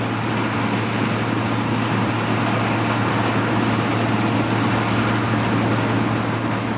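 A 1975 Claas Senator 85 combine harvester running under load while cutting wheat: a steady engine drone over a dense mechanical rumble of the working machine. It grows a little louder early on, holds steady, and eases off near the end.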